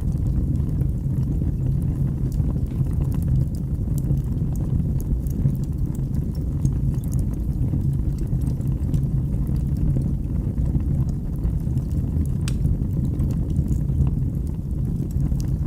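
Wood fire burning in a fireplace: a steady low rumble of flames with scattered small crackles and pops, one sharper pop about twelve seconds in.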